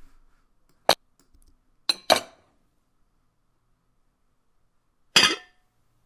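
Plate set down on a table, played back as separate sound-effect takes: a sharp clink about a second in, a quick double clink around two seconds, and a louder clatter with a brief ring about five seconds in.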